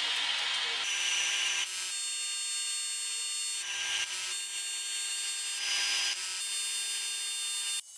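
A metal tool scraping along a rusty steel chain, then short bursts of arc welding as the chain is welded onto a square steel tube, with a steady whine between the bursts.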